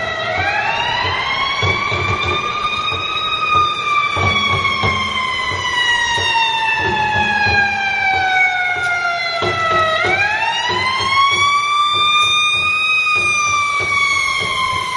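Fire engine siren wailing: its pitch climbs over about three seconds, then falls slowly for about seven, and climbs again about ten seconds in. Street traffic and engine rumble sit underneath.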